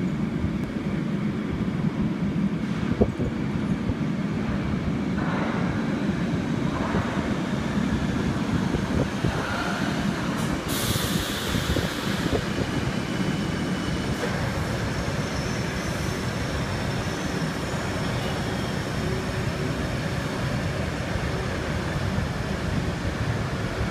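Old Astra IVA Bucharest Metro train coming into the station: a steady rumble of the approaching and then passing carriages as the train slows along the platform. There is a single sharp knock about three seconds in and a short, loud hiss about eleven seconds in.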